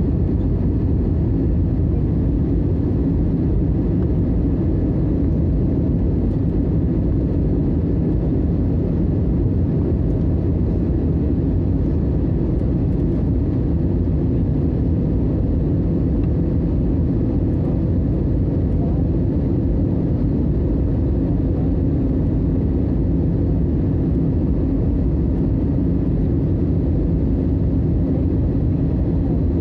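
Steady low rumble of a jet airliner's engines and rushing air, heard inside the passenger cabin during the descent to land.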